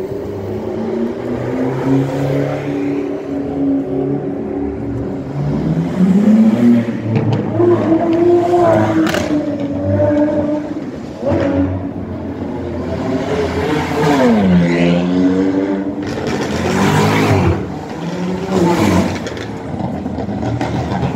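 Sports cars driving past one after another, their engines revving so that the pitch rises and falls as each goes by. About two-thirds of the way through, one engine's pitch drops sharply and climbs again.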